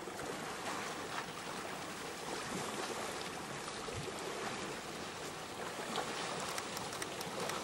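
Steady rush of shallow river water, with light splashing from elephants wading through it and a few sharp splashes near the end.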